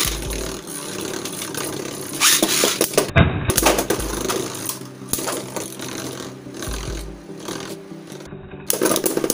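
Two Beyblade Burst spinning tops, Emperor Forneus and Slash Valkyrie, whirring and rattling on a plastic stadium floor, with rapid clicks and harder collisions as they clash, loudest about two and three seconds in and again near the end.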